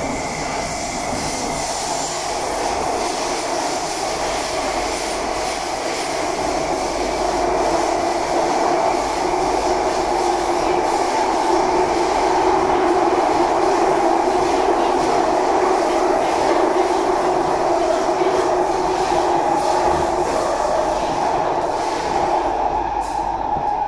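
Cabin noise of an SMRT C151B metro train running through an underground tunnel: a steady rumble of wheels on rail with a drone, growing a little louder about a third of the way in.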